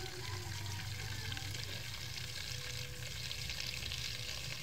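Tap water running in a steady stream into a metal pot of saba bananas, filling it with water for boiling.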